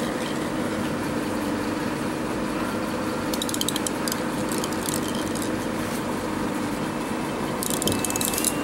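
Steady background room noise with a low hum, and two brief spells of quick, light rattling as puppies paw at a perforated plastic toy ball on a tile floor, about three seconds in and again near the end.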